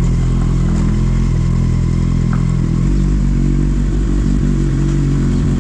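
Kawasaki Z800's inline-four engine running steadily. Its note shifts to a different engine speed about three seconds in.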